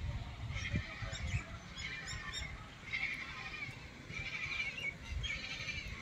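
A nesting colony of waterbirds calling all at once, many short wavering calls overlapping into a continuous chatter.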